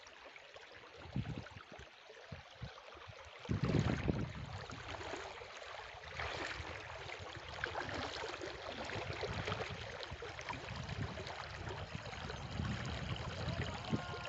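Flowing river water, a steady rushing hiss, with uneven low rumbles from wind gusting on the microphone, strongest about four seconds in.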